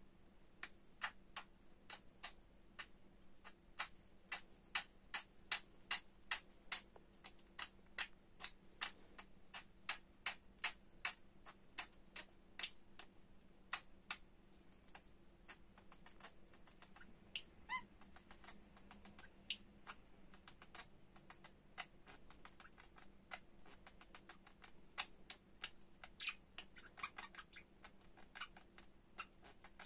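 Budgerigar making a long run of sharp clicks, about two to three a second, that thin out after about fourteen seconds. A few short chirps come at about eighteen seconds and again near the end.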